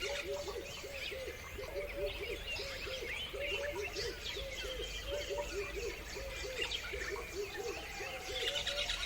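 A chorus of birds chirping, with many quick high twitters and chirps over a steady run of short, low calls repeating about four times a second.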